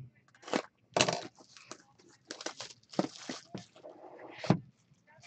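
Plastic shrink wrap being torn off a hockey card box and the cardboard box handled: an irregular string of short crackling rustles and scrapes, loudest about a second in and again near the end.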